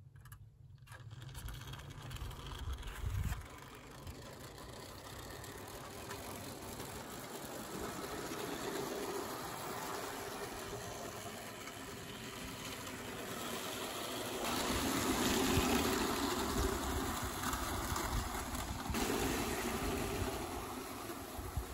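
Clockwork Bassett-Lowke 4-4-0 tinplate locomotive running with three Leeds tinplate coaches on 0 gauge track: the whirr of its spring motor and the wheels running on the rails, louder for a few seconds about two-thirds of the way through as the train passes close. Wind rumbles on the microphone in the first few seconds.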